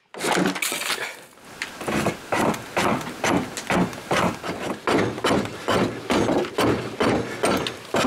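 A hand tool worked against a piece of birch wood in short, even strokes, about two to three a second.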